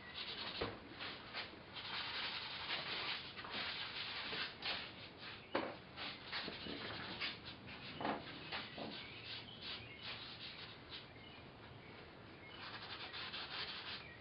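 Irregular scratchy rubbing strokes of oil paint being worked onto a small 8x10 painting surface. There is a quieter stretch a little after ten seconds, then the strokes pick up again.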